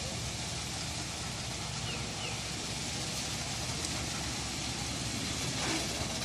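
An engine running steadily, a low even hum under a broad hiss.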